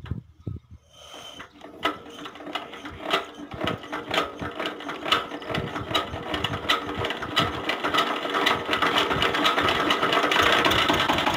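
Single-cylinder diesel tubewell engine being hand-cranked to start: a rhythmic mechanical clicking and clatter that speeds up and grows louder as the crank is spun faster.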